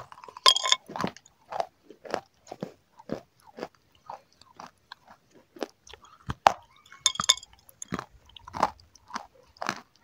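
A person biting into a brittle, crunchy piece right at a close microphone and chewing it: two sharp, loud bites, about half a second in and again about seven seconds in, each followed by a steady run of crunching chews about twice a second.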